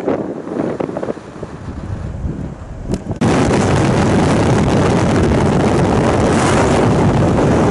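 Gusty wind buffeting the microphone. About three seconds in it switches abruptly to a louder, steady rush of road and wind noise from a car at motorway speed as it passes a tanker truck.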